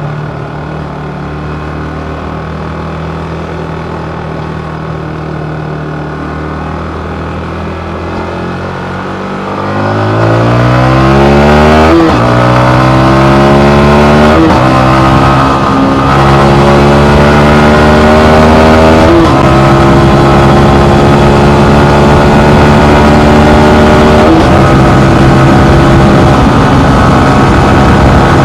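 Yamaha MT-15's 155 cc single-cylinder engine running steadily at low revs, then revving up hard about ten seconds in as the bike accelerates away. The engine note climbs and drops at each of four upshifts, and gets much louder once it pulls away.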